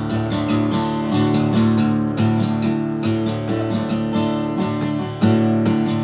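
Acoustic guitar strummed in a steady rhythm, chords ringing from one stroke to the next.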